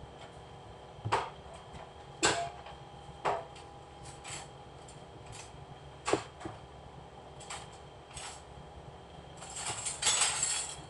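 Dishes and utensils being handled in a kitchen: scattered single clinks and knocks about a second apart, then a longer clatter near the end, over a steady hum.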